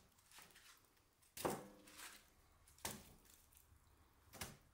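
Split firewood being loaded into a steel wood stove's firebox: three sharp wooden knocks about a second and a half apart, the first the loudest with a brief ring.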